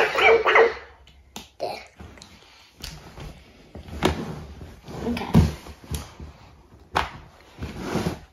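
Electronic puppy barks and yips from two battery-powered FurReal toy pets sounding together, stopping within the first second. After that, quieter scattered knocks and rustles as the toys are handled.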